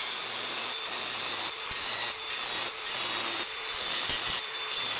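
Cordless angle grinder with a worn cutting disc cutting through the steel inner race of a wheel bearing left on a front spindle: a steady motor whine under a harsh grinding hiss that swells and eases about every half second as the disc is pressed into the metal.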